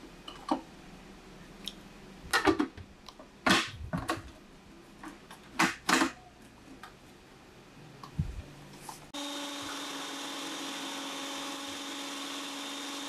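Plastic and metal clicks and knocks as the shredding disc and the lid of a GB National ST 830 food processor are fitted. About nine seconds in, its motor switches on abruptly and runs steadily.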